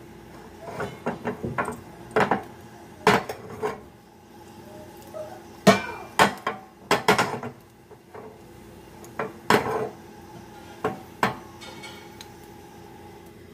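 A cooking utensil knocking and scraping in a skillet, with the pan clattering on the gas stove grate, as garlic frying in oil is stirred. The clanks come irregularly, about fifteen in all, with the loudest cluster about six to seven seconds in.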